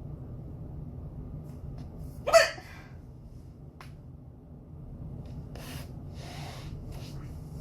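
A woman hiccuping once, a single sharp, loud hiccup a little over two seconds in, followed later by two soft breathy sounds, over a steady low background hum.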